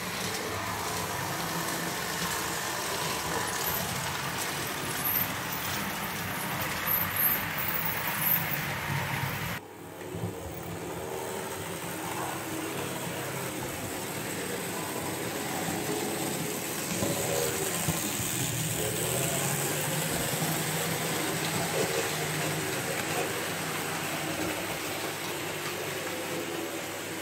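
Märklin model trains running on a layout: a steady rumble of wheels on the track with electric motor hum, changing abruptly about ten seconds in where the recording cuts to another shot.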